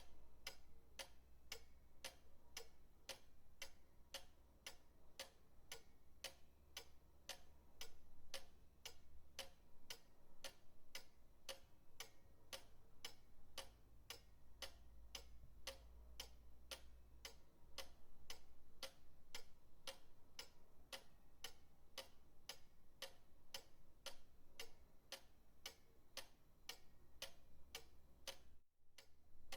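Pendulum clock ticking steadily, about two ticks a second, over a low hum. Everything drops out for a moment about a second before the end.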